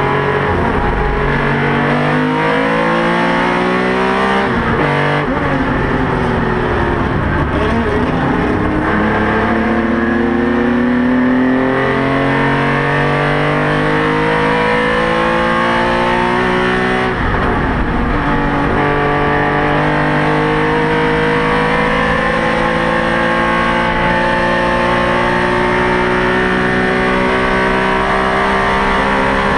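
Porsche 911 RSR's flat-six racing engine heard from inside the car at full throttle, its pitch climbing through the revs. The pitch drops sharply about five seconds in and again around seventeen seconds, then rises in one long steady climb.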